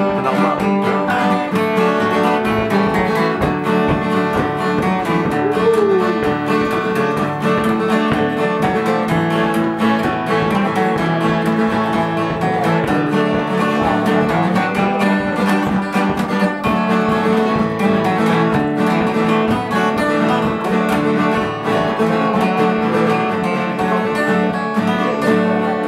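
Two acoustic guitars playing an instrumental tune together, strummed and picked at a steady rhythm.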